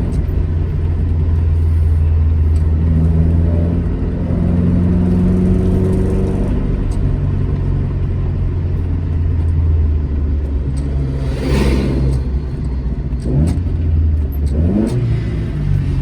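Alfa Romeo GT Junior's twin-cam four-cylinder engine driving on the road, its pitch climbing as it accelerates and rising in short sweeps near the end as it pulls through the gears. A brief rushing noise passes a little after halfway.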